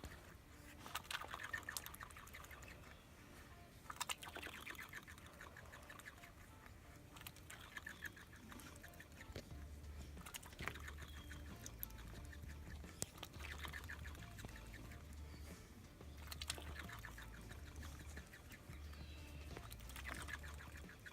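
Duck quacking in short, raspy, buzzy bouts, about one every three seconds, over a faint low rumble.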